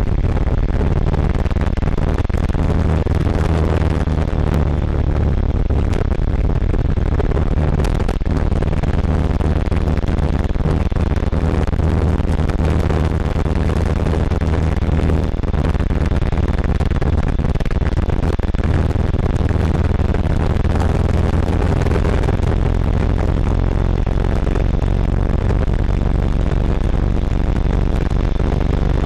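Cagiva River 600's big single-cylinder engine running steadily on the move, heard from inside a side pannier: muffled and heavily distorted, the recorder's level overloaded past its limit.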